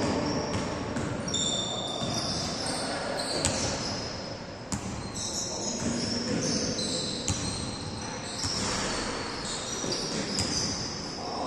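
Basketball game on an indoor court: sneakers squeak in short, high chirps again and again, with the odd knock of the ball bouncing, all echoing in a large hall.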